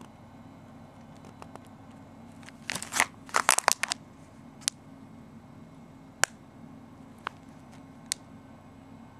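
Plastic packaging of a Nanoblock kit crinkling as it is handled: a cluster of crinkles and crackles about three seconds in, then a few single sharp clicks spread over the rest.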